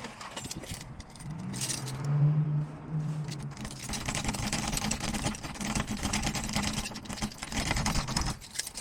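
Rapid irregular metallic clicking and jingling of keys or lock tools being worked at a lock, over a steady low hum that fades out near the end.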